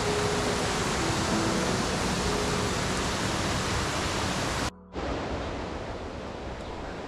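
Steady rushing of water, with faint music beneath. The sound cuts out briefly about five seconds in, then comes back quieter.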